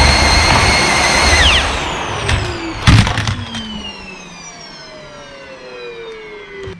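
Vacuum cleaner motor running with a steady high whine, then switched off about a second and a half in: the whine falls steadily in pitch as the motor spins down. A sharp knock about three seconds in.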